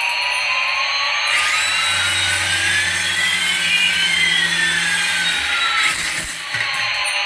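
Toy aircraft's electronic engine sound effect: a steady jet-like hiss with two tones, one rising and one falling, that cross in the middle, over a low hum that starts about two seconds in and stops about five seconds in.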